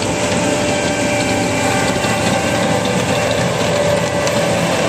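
New Holland 8080 self-propelled windrower with a disc mower header running steadily while it cuts alfalfa: a diesel engine drone with several steady tones from the machinery over it.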